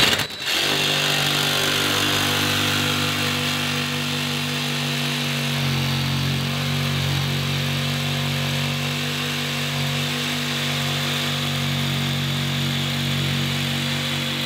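DeWalt cordless jigsaw cutting through the countertop along a sink cutout line, starting about half a second in and running steadily at an even speed.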